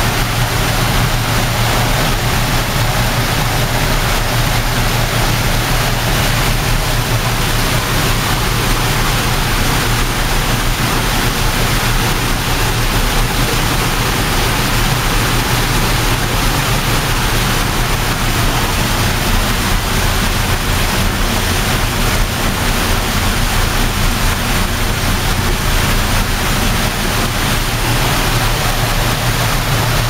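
Small ornamental waterfall, water pouring in many thin streams over a stone ledge into a pool: a loud, steady rush of splashing water.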